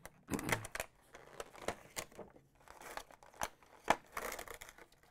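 Clear plastic blister packaging crinkling and crackling as its tape is cut with a utility knife and the toy trucks are lifted out of their plastic tray, with scattered clicks and one sharp snap just before four seconds in.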